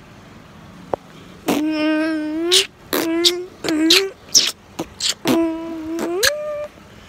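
A person beatboxing: held, hummed notes that bend up at their ends, broken up by sharp mouth clicks and short hissing 'ts' sounds, starting about a second and a half in.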